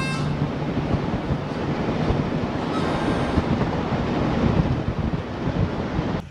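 Wind buffeting the microphone of a camera held out of a moving van's window, with the van's tyres rolling over a dirt road, a steady rough rush.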